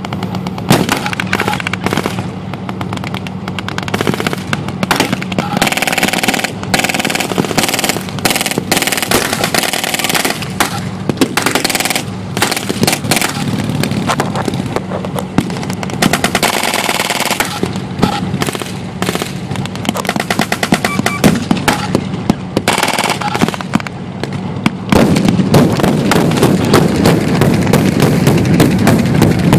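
Blank-firing machine guns and rifles in a reenactment battle: rapid rattling bursts and scattered single shots, over the steady run of armoured vehicle engines. Near the end a louder low rumble joins in.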